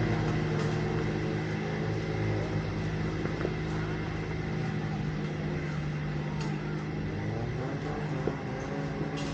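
Off-road 4x4's engine running steadily at low, even revs as the vehicle is driven slowly along the track under a spotter's directions.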